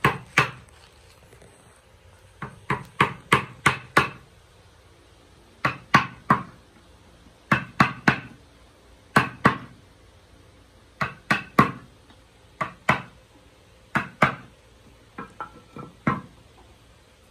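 Mallet driving a chisel into a wooden board: sharp wooden knocks in short runs of two to five strokes, with pauses of a second or more between runs, and a few lighter taps near the end.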